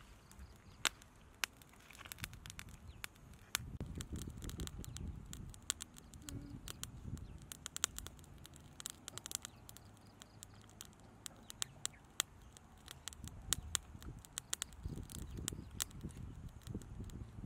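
Small campfire of sticks crackling, with scattered sharp pops and clicks at irregular intervals over a low rumble.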